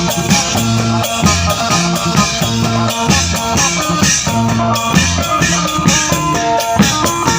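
Upbeat music with a steady drum-kit beat, a repeating bass line, shaker and guitar.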